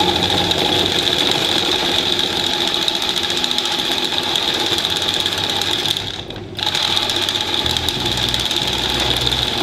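A brand-new electric radiator fan from a late-1990s Nissan Quest, wired to a battery through a relay, buzzing and rattling loudly without spinning up: the motor doesn't catch. The buzz cuts out for a moment about six seconds in, then starts again.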